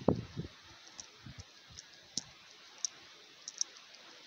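A low thump of the phone being handled at the start, then scattered short, sharp clicks over a faint steady hiss.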